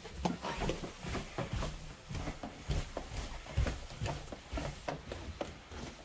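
Footsteps going down a flight of indoor stairs and onto a wooden floor, a dull thud with each step, about two or three a second.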